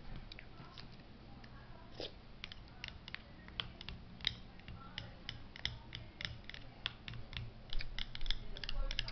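Irregular light clicks and taps close to the microphone, a few a second and thicker near the end, over a faint steady low hum.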